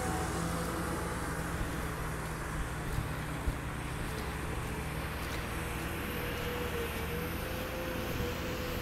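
Wheel loader diesel engine running steadily: a low engine hum with a steady, slightly wavering whine above it, and a couple of light knocks about three seconds in.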